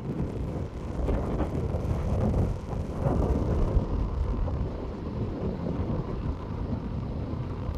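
Monsoon thunderstorm wind buffeting the microphone: a low, uneven rumble that rises and falls in gusts.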